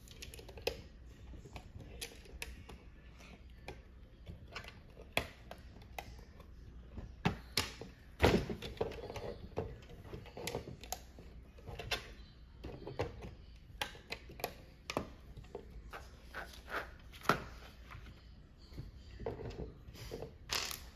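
Plastic Lego bricks clicking and clattering as they are handled and pressed together: scattered, irregular clicks, with a louder knock about eight seconds in.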